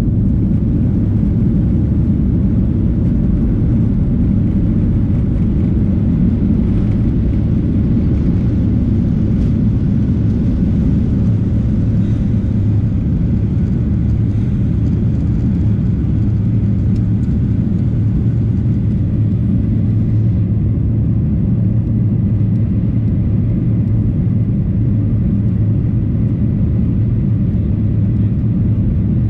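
Boeing 737-800's CFM56-7B turbofan engines running at high power, heard inside the cabin during the take-off run and climb: a loud, steady low rumble with a hum. About twenty seconds in, the higher hiss on top fades.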